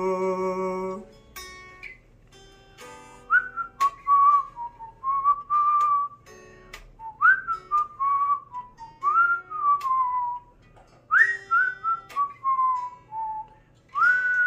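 A melody whistled in clear, single tones that slide up into and down between notes, over picked electric guitar notes. A held sung note ends about a second in.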